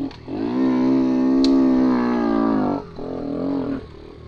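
Romet Ogar 202's single-cylinder four-stroke engine pulling under throttle on a sandy trail, with a steady note. The note dips briefly right at the start and again near the end, then falls away to a low rumble as the throttle comes off.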